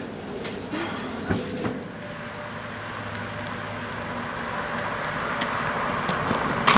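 A hatchback car approaching along a wet road, its engine and tyre noise growing steadily louder.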